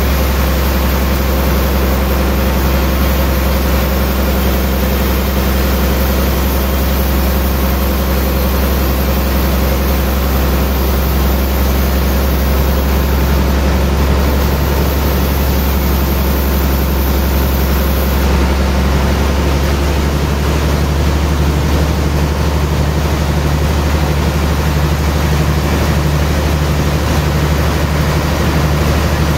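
Large band sawmill running steadily: a loud, constant machine hum.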